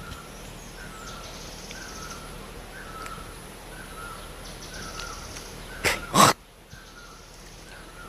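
Birds calling: a faint short call repeats about once a second, and two loud, harsh crow-like caws come close together about six seconds in.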